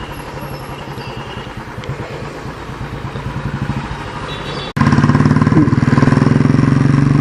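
Motorcycle engine running steadily while riding at speed. About two-thirds of the way through, the sound drops out for an instant and comes back noticeably louder, with a steadier engine hum.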